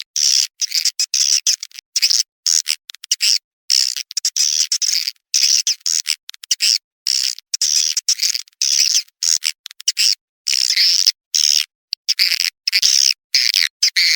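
Edible-nest swiftlet calls played back as a mixed lure recording: rapid, high chirping twitters in short bursts, broken again and again by abrupt cuts to dead silence, with nothing heard below the high register. Lure calls like this are played to draw swiftlets into a nesting house.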